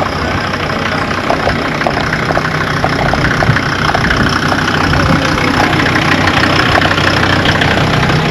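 A motor vehicle's engine running with a steady low hum, the noise swelling a little from about three seconds in.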